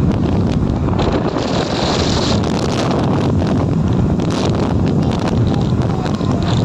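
Steady, loud wind buffeting on the microphone of a moving two-wheeler, mixed with the vehicle's running and road noise.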